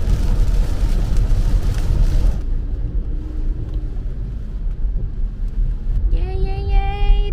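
Car driving in heavy rain, heard from inside the cabin: a dense hiss of rain and tyre spray over a low road rumble. The hiss cuts off suddenly about two and a half seconds in, leaving only the quieter low rumble of the car. Near the end a woman's voice starts with a long held vowel.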